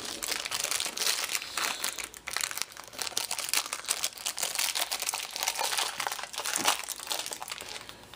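Thin plastic bag wrapping a phone wall charger crinkling and crackling without a break as hands pull at it, trying to get it open.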